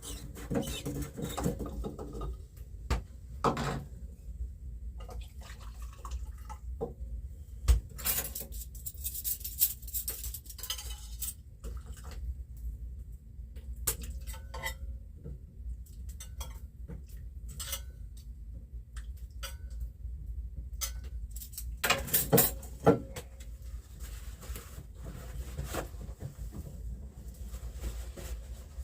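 Intermittent clinks and clatters of dishes and utensils being handled, with a louder run of clatters about 22 seconds in.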